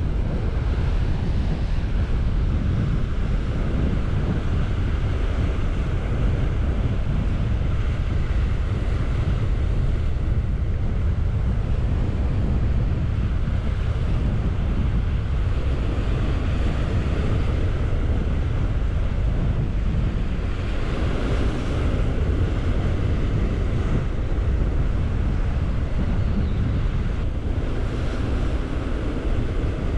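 Steady wind rumbling on the microphone over surf washing against the shore rocks.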